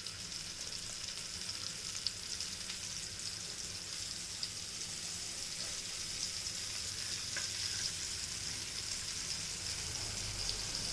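Masala-coated seer fish (vanjaram) slices shallow-frying in hot oil: a steady sizzle with fine crackles.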